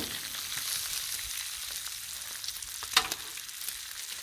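Bacon strips sizzling on a hot Blackstone flat-top griddle: a steady hiss of fat frying, with one sharp click about three seconds in.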